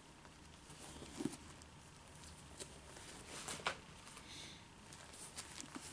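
Faint rustling and light ticks of paper pages being handled and turned, with a louder rustle about a second in and another at the midpoint.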